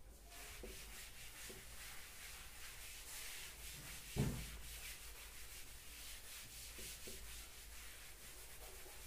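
A chalkboard being wiped clean with a duster: a faint, continuous scrubbing rub of repeated strokes across the board, with one dull thump about four seconds in.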